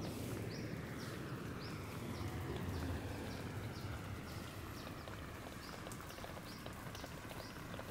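Layered outdoor field-recording soundscape: a steady low rumble under short high chirps that repeat about twice a second, with a few faint clicks.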